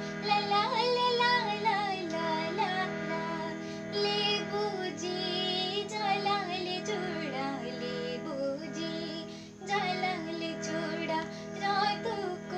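A young woman singing a Jaunsari folk song solo, in phrases over a steady sustained instrumental backing, with a short break between phrases about three seconds before the end.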